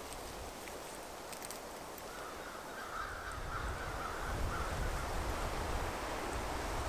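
Birds calling harshly, a run of calls lasting about two and a half seconds near the middle, over a steady low rumble.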